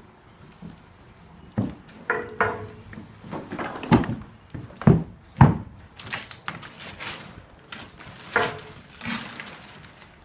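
Irregular footsteps and knocks on a timber deck, with a few short ringing clinks; the loudest thuds come in a cluster a little before the middle.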